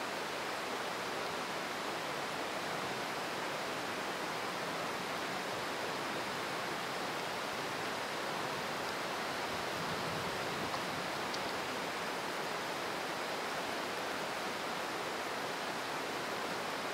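Very heavy rain pouring down steadily, an even hiss without let-up.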